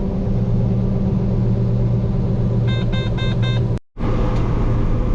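Combine harvester running with a steady engine drone, and an electronic warning beeping four times in quick succession about three seconds in. The sound drops out for a moment just before four seconds, at an edit.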